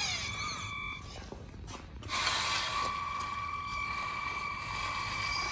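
Electric motors of a radio-controlled Liebherr wheel loader model running with a steady high whine. The whine changes pitch briefly at first, drops out for about a second, then comes back louder as the loader works its bucket into the dirt.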